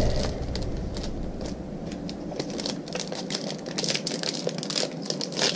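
Foil trading-card pack wrapper crinkling as it is handled and torn open, a dense run of quick, sharp crackles that gets busier in the second half.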